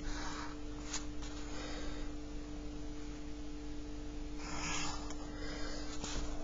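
Pencil drawn in straight lines along a plastic set square on paper: three short scratching strokes, the loudest a little past the middle, with a light click about a second in. A faint steady hum sits underneath.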